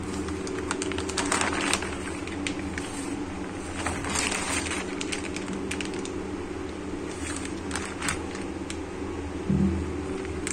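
Clear plastic bags around water-purifier filter cartridges crinkling and crackling in irregular bursts as they are handled, over a steady low hum.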